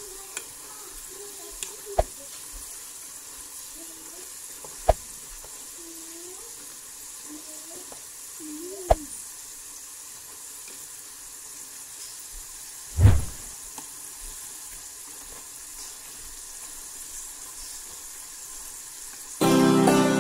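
Potato fries deep-frying in hot oil: a steady sizzle, broken by a few sharp clicks as chopsticks stir them against the pot and a duller knock about two-thirds of the way in. Music with plucked strings comes in just before the end.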